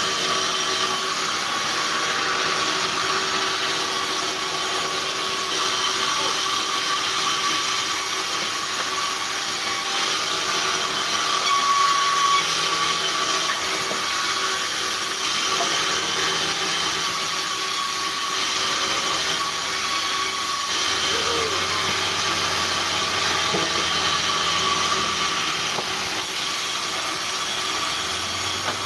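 Sawmill band saw running steadily with a thin whine, its blade cutting timber as logs are fed through and sawn slabs pulled back.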